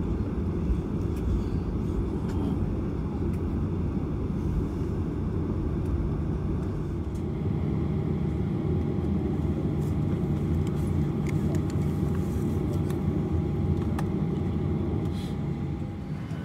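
Boeing 737 cabin noise: the steady low rumble of the jet engines and airframe as heard inside the cabin, with a thin steady whine joining about halfway through. The level drops a little near the end.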